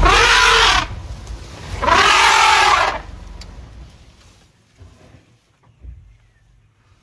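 African elephant trumpeting twice, two loud blaring calls whose pitch rises and falls, over a low vehicle engine rumble that dies away after about four seconds.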